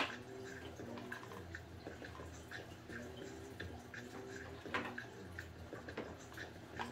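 Faint steady trickle and dripping of water from an aquarium filter, with small evenly spaced drips. A sharp click right at the start and a light knock a little past the middle come from handling the power bank and its packaging.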